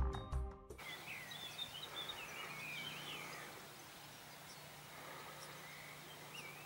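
Intro music cuts off within the first second, leaving outdoor ambience with songbirds singing: a run of chirping phrases in the next few seconds and another short call near the end, over a faint steady low hum.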